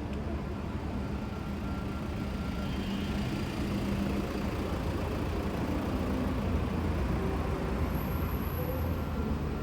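Night-time city street ambience: road traffic running past as a steady low rumble, with a general hum of the street.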